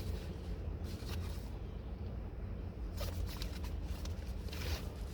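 Papers rustling in short bursts as repair receipts are handled, over a steady low rumble.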